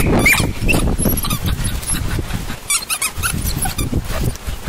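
Rubber squeaky dog toy squeaking in short, repeated chirps as two poodle puppies bite and tug on it, over scuffling and handling noise.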